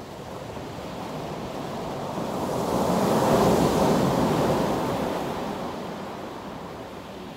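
Sea surf: a wave builds, breaks on the shore at its loudest about three to four seconds in, then fades.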